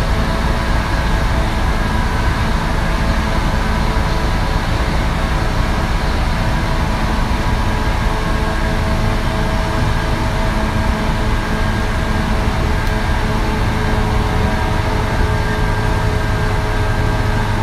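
117 series electric train running at steady speed, heard from on board: a loud rumble of wheels on rail with the steady whine of its MT54D traction motors.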